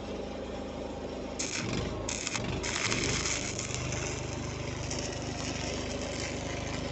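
An engine running steadily, with a welding arc crackling and hissing over it from about a second and a half in. The arc is struck, breaks twice, then is held.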